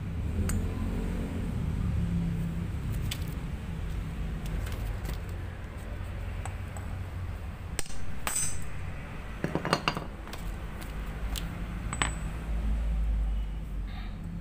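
Light metallic clinks and taps of valve parts and tools against a motorcycle's aluminium cylinder head as the valve spring is pressed down and the small valve keepers are worked loose, with a couple of brighter ringing clinks about eight and twelve seconds in.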